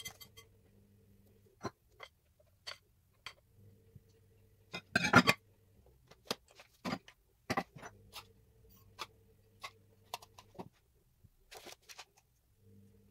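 Kitchen utensils and containers handled on a worktop: scattered clicks and knocks of glass and plastic being set down and moved, with one louder rattle about five seconds in. A faint low hum runs underneath and drops out briefly a few times.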